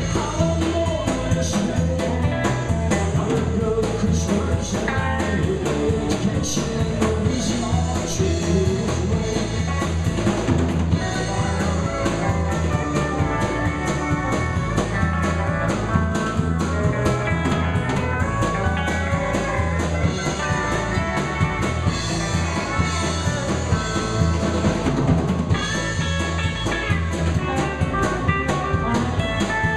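Country band playing live: a steady drum-kit beat under electric bass and guitars, with pedal steel guitar.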